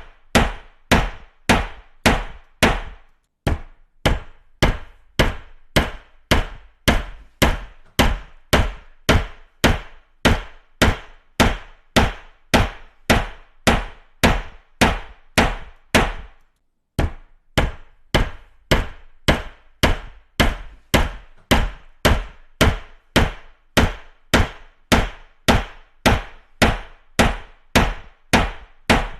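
Hammer striking repeatedly at a steady pace of about two blows a second, each a sharp knock with a short ring. The blows pause briefly about three and a half seconds in and again about sixteen seconds in.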